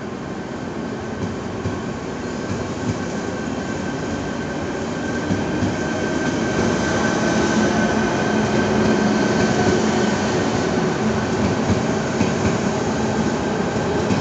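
ČD class 471 CityElefant double-deck electric multiple units on a slow shunting move, running past with wheels rumbling on the rails and a few steady whining tones. The sound grows gradually louder as the units come closer.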